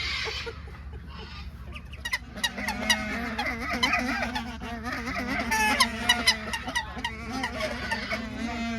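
A group of geese honking, many calls overlapping, the honking getting busier about two seconds in.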